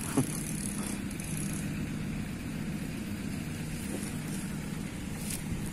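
A steady, low engine hum, like a motor running at idle.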